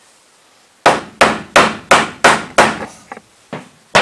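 A hammer striking a small wooden block wedged under a wooden framing board, driving it up as a shim to bring the board level. It gives six hard blows in quick succession, about three a second, starting about a second in, then a couple of lighter taps and one more hard blow near the end.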